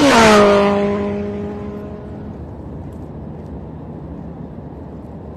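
A motor vehicle passing close by at speed: its engine tone drops sharply in pitch as it goes past, loudest just after the start, then fades away over about two seconds.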